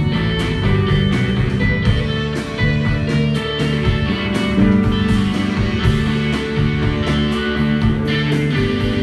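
Live rock band playing: electric guitar over electric bass and drums, with a steady beat.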